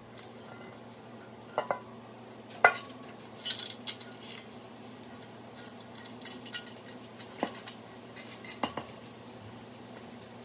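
Scattered light metal clinks and taps as parts of a BMW S52 engine are handled: the bare aluminium cylinder head being settled on the block and its timing chain moved by hand. About half a dozen separate clinks, the sharpest about two and a half seconds in, over a steady low hum.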